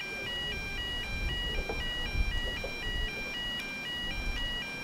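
Electronic two-tone sounder alternating steadily between a high and a low note, switching about four times a second, over a low rumble.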